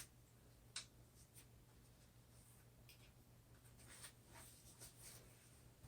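Near silence with a few faint clicks and scratchy rustles from hands working the packing straps and box.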